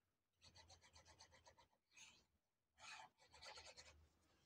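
Near silence with faint scratchy rubbing in a few short spells: a fine-tip plastic glue bottle being squeezed and worked against a small piece of paper as glue is applied.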